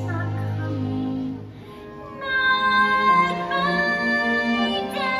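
Music from a stage musical: a voice singing a held note over orchestral backing that fades about a second and a half in, then, after a short lull, the orchestra swells into held chords.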